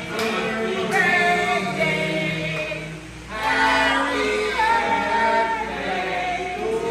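Music with several voices singing held notes, with a brief lull about three seconds in.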